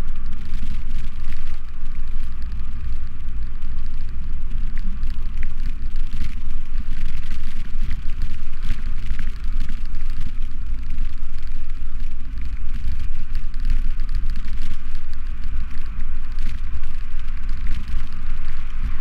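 Steady wind rumble on the microphone of a GoPro action camera riding on a moving bicycle, with tyre-on-road noise and scattered light clicks and rattles.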